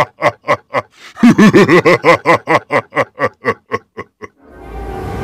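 A sinister laugh, a rapid 'ha-ha-ha' in two runs, each fading away. Near the end a whoosh sound effect with a low rumble swells up.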